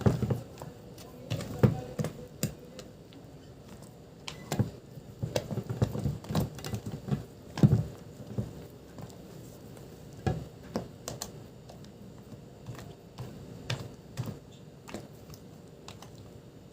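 Irregular light clicks and knocks of kitchen utensils being handled, with an occasional duller thud.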